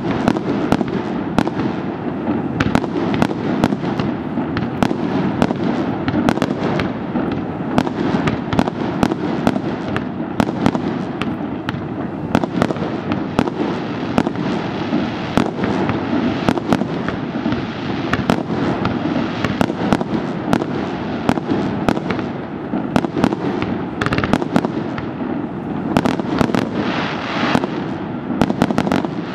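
Fireworks firing continuously: a dense, rapid run of sharp cracks and pops over a steady rushing noise.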